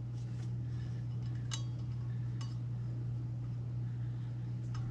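A steady low hum with a few light clicks and taps, about a second apart, as small metal and plastic parts are handled.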